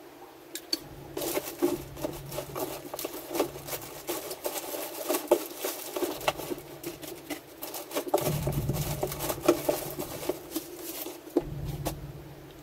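Small metal carburettor parts clicking and clinking as they are picked up, handled and rummaged through on a workbench. There are two stretches of rougher rustling and scraping, about eight seconds in and again near the end.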